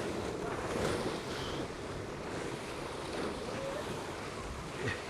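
Wind rushing over the microphone and water rushing past the hulls of a Tornado catamaran sailing fast in strong wind: a steady, even rush.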